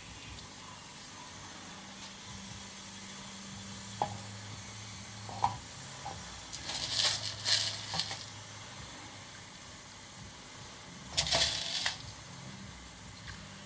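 Steady background hiss and low hum, with a few light clicks and two short bursts of rustling, like something being handled.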